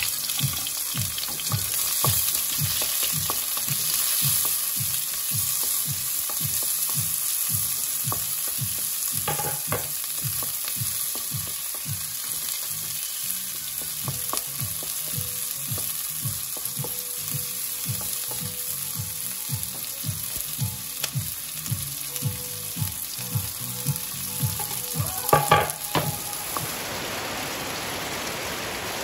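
Food sizzling as it fries in a pan while being stirred in a steady rhythm, about two to three strokes a second, with a few sharp clacks, the loudest about 25 seconds in. The stirring stops near the end, leaving an even sizzle.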